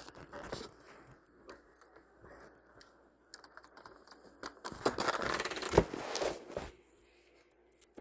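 Handling noise: irregular scratching, rubbing and small clicks against the recording device's microphone while its lens is covered, densest and loudest from about five to six and a half seconds in.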